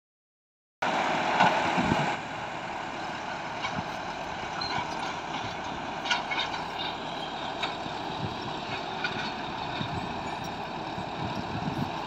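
BEML D50 crawler bulldozer's diesel engine running steadily under load as it pushes a pile of soil with its blade, with occasional light clanks. The sound comes in just under a second in and is louder for about its first second.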